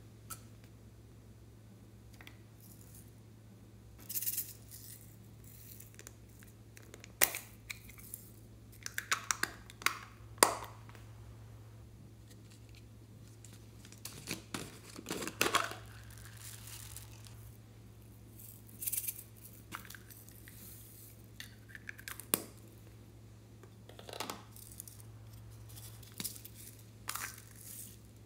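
Scattered clicks, crackles and short rattles as small plastic toy containers are handled and opened and foam beads and sequins are poured out onto slime, over a steady low hum.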